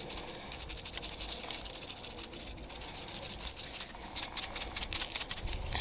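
Twist-top spice grinder grinding roasted garlic and herb seasoning: a rapid, continuous run of fine scratchy clicks as the top is twisted.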